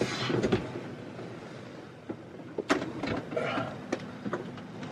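Plastic cabinet of a portable washing machine scraping and knocking against the boat's cabinetry as it is wedged into a tight space: a scrape at the start, then a sharp knock and a few smaller clicks.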